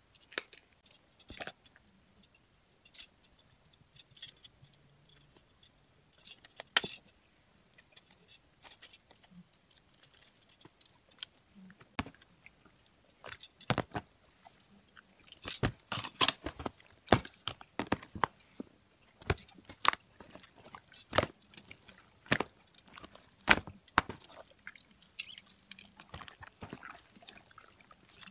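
Slime being squeezed and kneaded by hand in a plastic tub, giving irregular clicks and crackles that come thickest in the second half.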